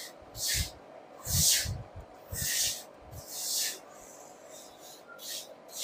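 Cooking oil poured from a plastic bottle into a wok, coming out in short hissing spurts about once a second.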